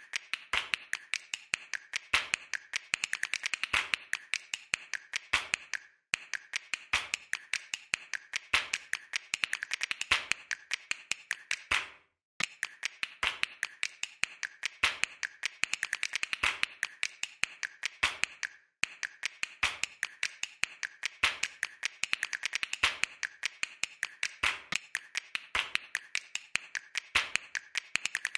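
Crisp clicks and ticks in rhythmic clusters, each speeding up into a dense flurry, in a looped percussive soundtrack that breaks off briefly about every six seconds.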